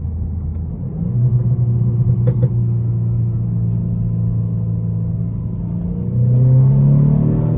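BMW F30 engine and exhaust under way, the revs climbing about a second in and again near the end before dropping sharply. Two quick exhaust pops about two seconds in.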